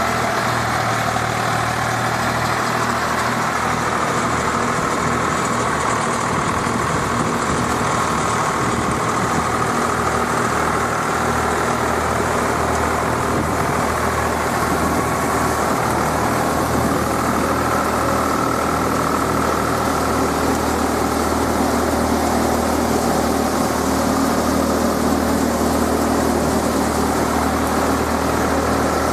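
Swaraj 735 FE tractor's three-cylinder diesel engine running steadily under load, powering a paddy thresher, with the thresher's drum and blower adding an even rushing noise as paddy straw is fed through.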